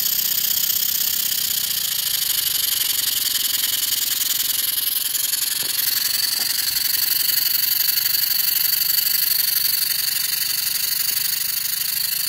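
Small Stuart 10V model steam engine running on compressed air: a steady, fast hiss of air through the cylinder and exhaust with a light mechanical rattle. About halfway through, a steady high whine sets in.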